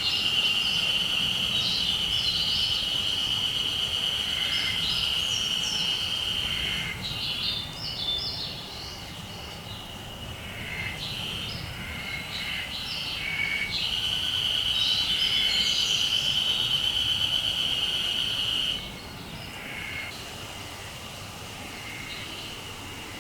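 Japanese spring cicada (haru-semi, Terpnosia vacua) singing a steady, even drone. It stops about 7 s in, starts again about 14 s in, breaks off after about five seconds, and starts up faintly once more just at the end.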